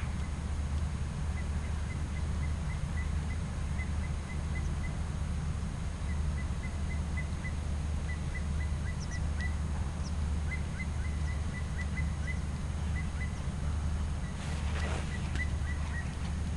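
Outdoor ambience: a steady low rumble, with runs of faint, short, evenly pitched chirps, likely from a small bird, coming several a second. Near the end there is a brief rush of noise as the ridden horse comes close.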